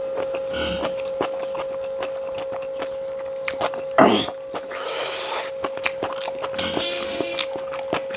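Close-miked eating: chewing and lip-smacking on pork, many small wet clicks, with one louder mouth sound, like a slurp, about four seconds in. A steady faint hum runs underneath.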